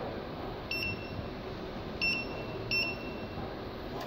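Keypad beeps from a Maynuo M9716 DC electronic load as its front-panel buttons are pressed to set the load current. There are three high beeps, the first short and the next two longer, about two and three seconds in, over a steady background hum.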